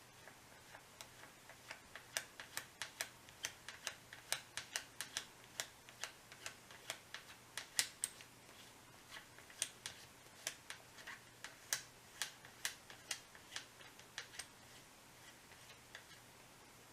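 Irregular light clicks and ticks, two or three a second, of small parts and hand tools being worked while a Falcon Prairie air rifle's bolt handle is refitted; they die away near the end.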